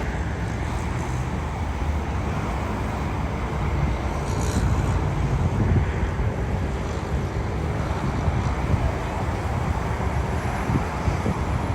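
Low, steady rumble of a jet airliner's engines mixed with wind buffeting the microphone, swelling somewhat about four seconds in.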